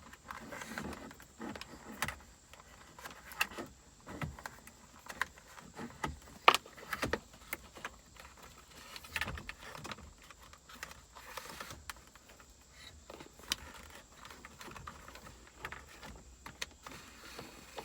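Hands-on handling noise as an aux cable is fed through the dashboard trim: scattered clicks, taps and rustles of cable and plastic panels, with one sharp click about six and a half seconds in.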